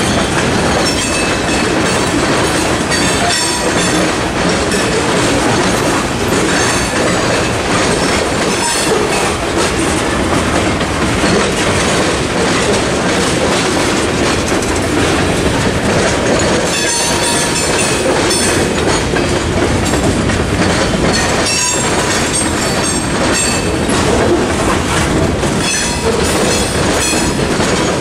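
Freight train cars (covered hoppers, tank cars, a boxcar) rolling past at a grade crossing: a steady clatter of steel wheels over the rail joints and crossing, with high wheel squeal now and then.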